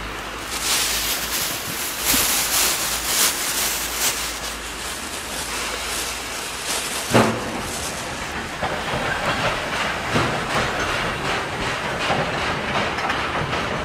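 SY-class 2-8-2 steam locomotive hauling a train of hopper wagons, its exhaust beating in a rhythm over a steady hiss of steam, with wheels clicking over rail joints. A single sharp bang stands out about seven seconds in.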